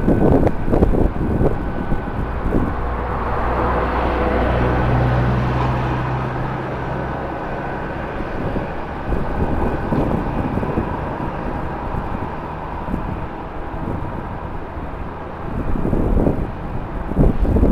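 Jet airliner engines heard across the airfield, swelling and then fading over several seconds, under strong wind buffeting the microphone, with heavy gusts at the start and again near the end.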